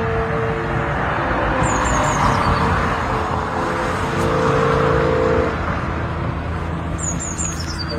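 Disney cruise ship's horn sounding held notes over a loud, steady rushing noise; the notes fade about five and a half seconds in.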